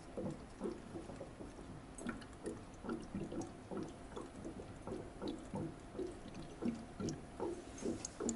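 Water draining from a freshly seated Frecious water-server bottle into the server's tank, in irregular glugs, about three or four a second.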